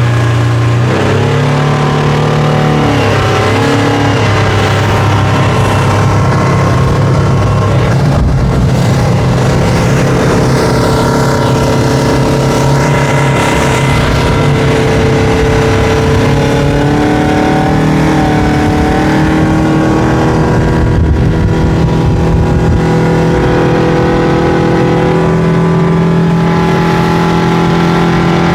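Yamaha 150 four-stroke outboard on a Grady-White 180 Fisherman pulling a hole shot: the engine note rises in the first few seconds as the boat accelerates, then holds at a steady, loud high-speed run, with small shifts in pitch partway through.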